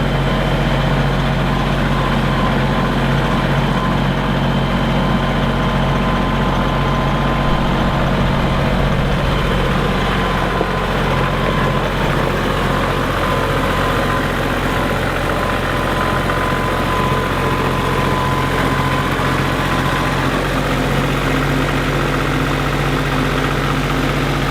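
Woodchipper engine running steadily, with no chipping impacts standing out.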